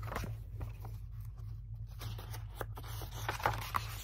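Pages of a large picture book being turned and handled: a run of papery rustles and crinkles, busiest about three seconds in, over a low steady hum.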